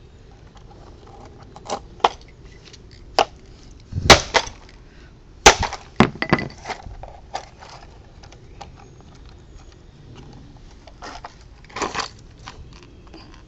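Irregular sharp knocks and cracks as the plastic casing of an AC power adapter is being broken open, about half a dozen loud strikes in the first half and one more near the end, with small clicks and rattles between.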